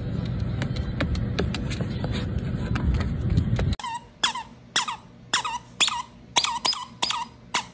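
A steady low rumbling noise with a few faint clicks, cut off suddenly about four seconds in. A dog's squeaky toy then squeaks rapidly as it is bitten, about two squeaks a second, each falling in pitch.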